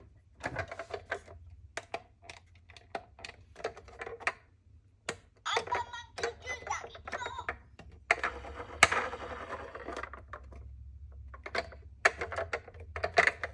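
Toy minicars clattering: an irregular run of small clicks, knocks and rattles, densest about eight to ten seconds in, with one sharp knock near nine seconds.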